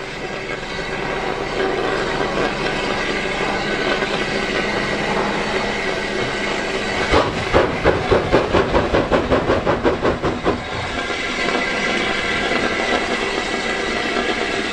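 Metropolitan Railway E class 0-4-4 tank engine Met 1 working a passenger train: a steady hiss of steam, broken about halfway through by some three seconds of sharp exhaust chuffs at about four a second that fade back into the hiss.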